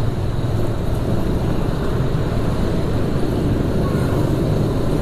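Motorcycle engine running steadily at low speed as the bike is ridden, a steady low rumble with road noise.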